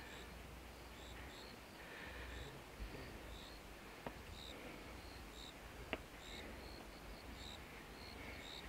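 Insects chirping: short high chirps repeating irregularly several times a second over a faint outdoor background. Two small clicks are heard about four and six seconds in.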